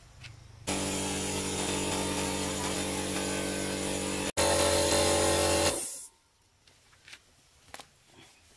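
Small 'Star' 2.5 HP portable air compressor running with a steady motor hum. It starts suddenly about a second in, drops out for an instant and comes back louder, then stops about six seconds in. A few faint clicks follow.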